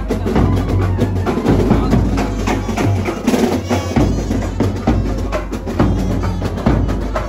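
Procession band playing loud, fast drumming over a heavy bass drum pulse, with a saxophone carrying the tune.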